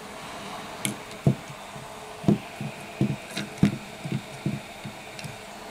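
A metal blade scraping underfill compound off an iPhone 6 logic board around the U2301 camera chip: a run of about a dozen short knocks, two or three a second, over a steady background hiss.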